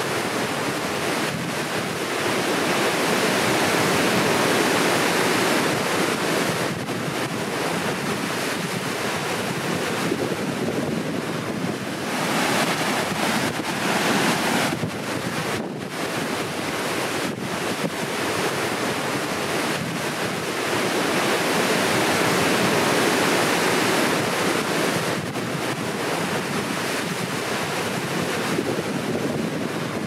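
Upper Cataract Falls, a waterfall, rushing with a steady roar of falling water that swells and eases a little in loudness.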